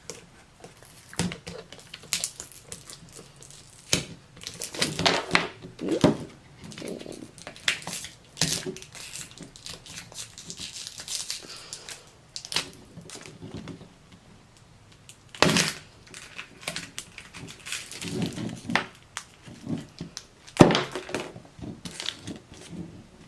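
Crinkling of plastic and foil toy packaging, with irregular clicks and knocks as small plastic pieces are handled, and a few sharper knocks about two-thirds of the way through.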